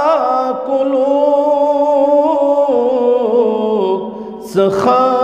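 A man singing a devotional nazm in Kashmiri, drawing out long wavering notes, with a short break for breath about four seconds in.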